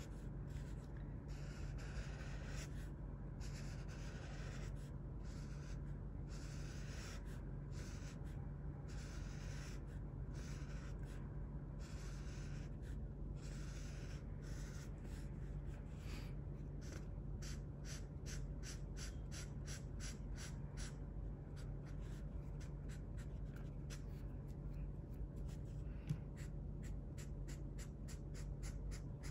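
Red felt-tip marker scratching across sketchbook paper, colouring in with short back-and-forth strokes that come quicker and closer together in the second half. A steady low hum runs underneath.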